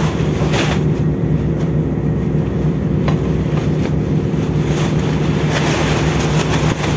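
Ship's machinery running with a steady low drone, with wind gusting on the microphone a few times.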